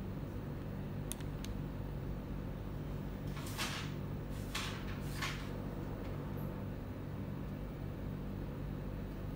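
Steady low hum of room equipment, with two faint clicks about a second in and three short rustling swishes between about three and five and a half seconds in.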